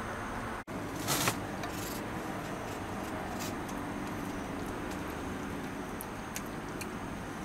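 Steady background noise, like distant traffic, with a brief dropout just over half a second in, a short loud burst of noise about a second in, and a few faint clicks after.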